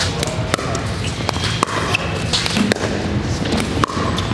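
Pickleball rally in a large indoor hall: a series of sharp, irregularly spaced pocks as paddles hit the plastic ball and the ball bounces on the court.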